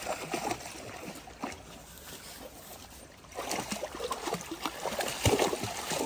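Splashing of Dalmatians and a person wading through a shallow stream, over the stream's trickle. It is quiet at first; the splashing picks up a little past halfway.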